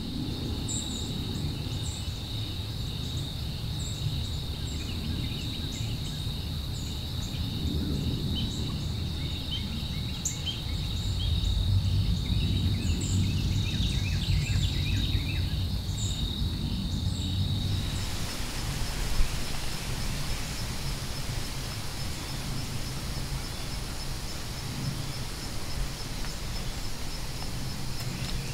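Outdoor woodland ambience: a steady high insect chorus with scattered short bird chirps over a low rumble that swells midway. About two-thirds of the way through the insect tone shifts higher and a pulsing buzz takes over.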